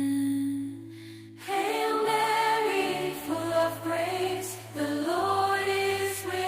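Sung music: slow held vocal notes over a low steady drone, pausing briefly about a second in before the next phrase begins.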